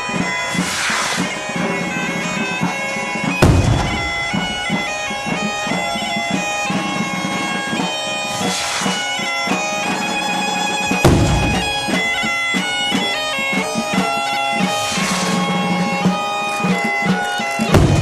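Asturian bagpipe (gaita) playing a tune over its steady drone. Three loud bangs come about every seven seconds, each with a short hiss a couple of seconds before it.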